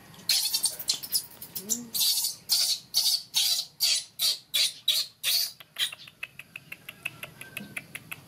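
Baby macaque screaming in a run of shrill cries, about two a second, the distress cries of an infant monkey. About six seconds in, the cries give way to quicker, fainter squeaks.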